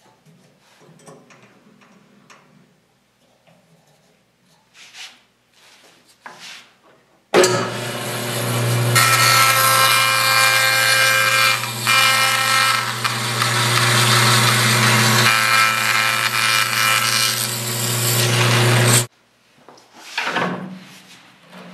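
Faint clicks and knocks of handling for several seconds, then an electric woodworking power tool starts and runs loudly and steadily for about twelve seconds, with a couple of brief dips, before cutting off.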